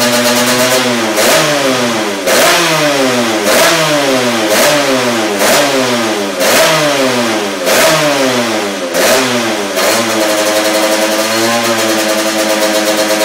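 Honda CR80 two-stroke single in a Moriwaki MH80R race bike being revved in repeated short throttle blips, about once a second, each rising in pitch and dropping back, then settling to a steadier run near the end.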